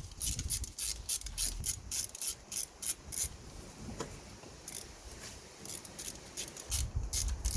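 Socket ratchet clicking in quick runs, about six clicks a second, as a 10 mm socket unscrews a glow plug from the engine.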